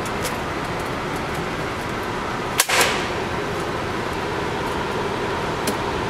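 Steady ventilation noise of an indoor shooting range. One sharp crack about two and a half seconds in, with a short noisy tail.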